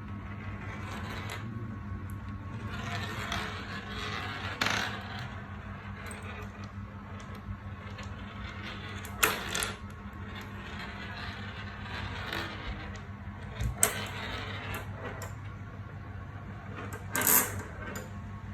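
Marbles rolling and rattling down a toy marble run, with sharp clacks as they drop or knock against the track. The loudest clacks come about halfway through, about three-quarters through and near the end.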